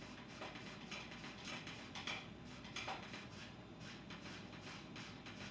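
Faint, scratchy swishes of a two-inch bristle brush stroking oil paint across a canvas, about two strokes a second, over a low steady room hum.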